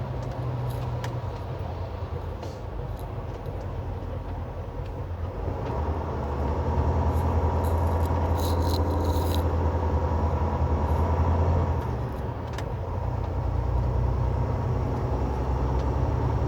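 Semi truck's diesel engine droning steadily under way, heard from inside the cab, with road noise. It grows louder about six seconds in and eases back a few seconds later.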